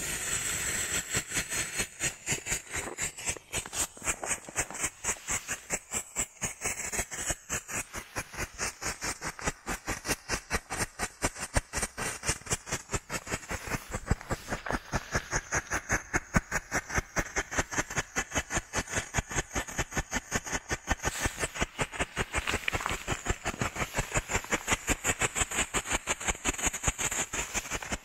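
A ground firework tube burning on its side, hissing steadily and giving off a rapid, even train of sharp pops, several a second, without a break.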